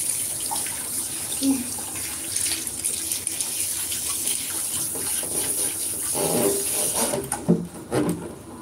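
Handheld shower head spraying water onto a wet cat and into a tub of soapy water, a steady hiss that cuts off about seven seconds in, followed by water sloshing as the cat is scrubbed.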